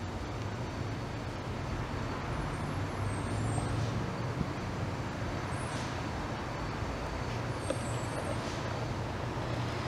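Steady low rumble of distant road traffic, with a few short high chirps twice.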